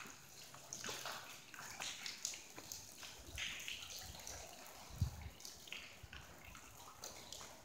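Footsteps crunching and splashing over a wet, debris-strewn floor, in irregular scuffs and clicks, with one sharp thump about five seconds in.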